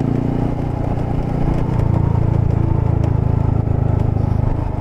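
Honda Monkey's small single-cylinder four-stroke engine running as the bike rides along. Its note drops in pitch and gets a little louder about two seconds in.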